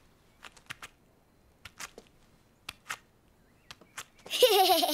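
Cartoon sound effects: light, scattered tapping steps, one or two a second, as the turtle walks slowly. Then, about four seconds in, a loud, short vocal sound that wavers and falls in pitch, like a bleat.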